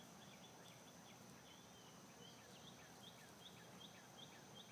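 Near silence with a faint, high, short chirp repeating steadily about two or three times a second.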